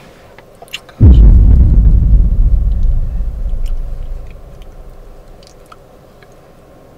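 A sudden loud deep boom about a second in, fading out over about three seconds.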